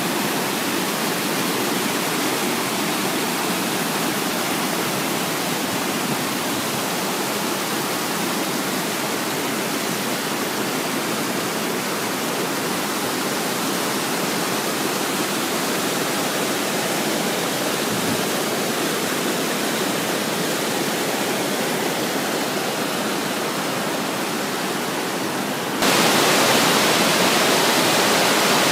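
Mountain stream rushing and splashing over rocks in a steady roar. Near the end the rush turns suddenly louder and brighter.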